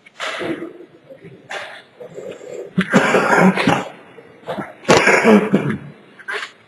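A person coughing close to the microphone, two loud fits about a second each, near the middle and about two-thirds through, with smaller throat sounds around them.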